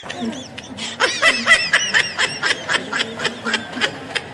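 A person snickering, stifled laughter in quick short bursts.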